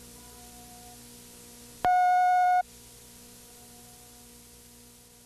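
A single steady electronic beep tone lasting under a second, about two seconds in, over faint tape hiss and a low steady hum.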